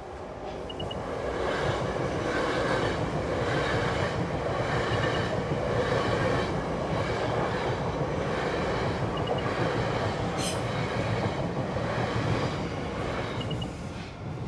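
South Western Railway electric passenger train running through a level crossing: a loud steady rumble of wheels on rail with a regular clatter. It builds over the first couple of seconds, holds, and fades near the end as the last carriage clears.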